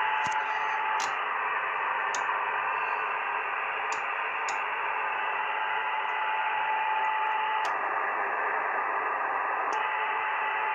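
CB radio receiver on upper sideband hissing with static, with a steady whistle tone that drops out after about a second, returns for a while in the middle and comes back near the end, and a few sharp clicks.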